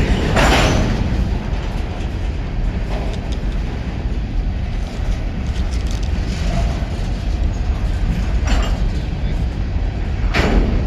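Empty coal cars of a freight train rolling past, a steady low rumble with wheel clatter on the rails. Two brief louder surges of noise come about half a second in and again near the end.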